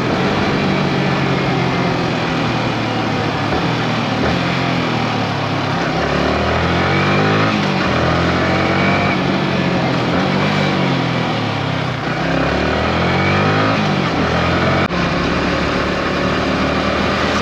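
Motorcycle engine running while riding, its pitch rising and falling repeatedly, over a steady rush of wind noise picked up by the GoPro Media Mod's built-in mic. There is a brief break about 15 seconds in, after which the same riding sound carries on.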